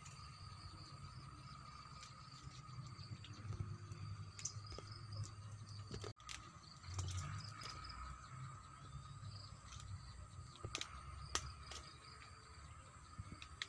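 Steady drone of forest insects, two held tones, one high and one higher, over a low rumble, with a few sharp clicks scattered through; the sound cuts out for an instant about six seconds in.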